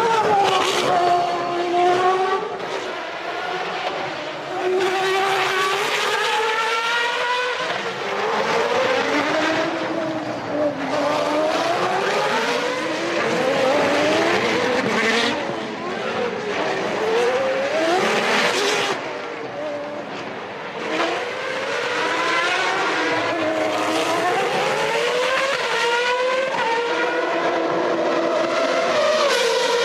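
1993 Formula One race cars' engines at high revs, pitch climbing through each gear and dropping back as they brake and accelerate, several cars overlapping and passing in turn.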